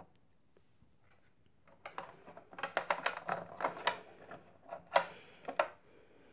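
Hard plastic doll knocking and rubbing against a plastic toy bed as it is moved about by hand: a quick, irregular run of clicks and taps starting about two seconds in, the loudest knock near the end.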